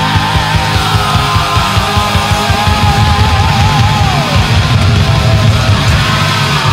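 1980s Japanese heavy metal recording: distorted electric guitars over fast, dense drumming, with a high melody line that wavers with wide vibrato.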